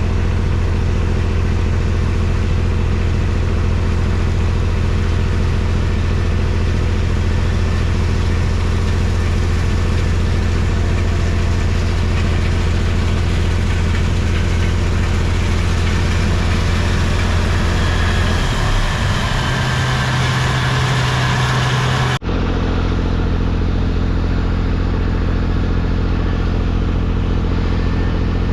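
Farm tractor engine running steadily, with a low even drone. A little before 19 s the engine note shifts up, and about 22 s in the sound cuts abruptly to another steady engine drone.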